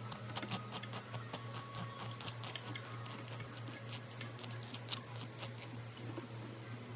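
Hand rasp scraping over welded plastic in quick, short scratchy strokes, about four a second, shaping the plastic weld. A steady low hum runs underneath.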